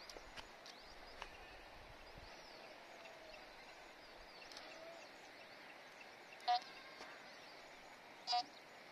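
Handheld metal detector giving two short beeps about two seconds apart near the end, its signal that there is metal under the search coil. Faint bird chirps in the background.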